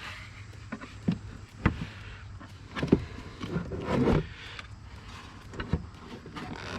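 Plastic airbox being worked back into place in a BMW B58 engine bay: a series of sharp knocks and clicks, with a burst of scraping about four seconds in, as it is pushed to seat in its groove.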